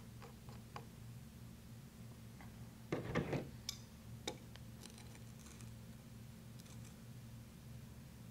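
Small metallic clicks and taps of a pressure gauge being fitted into an air rifle's body by hand, with a louder knock and rattle about three seconds in.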